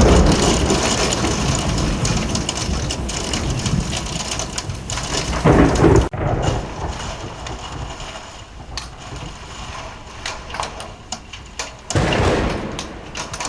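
Thunderstorm: steady heavy rain with rolls of thunder, a loud clap right at the start, another about five and a half seconds in and a third about twelve seconds in.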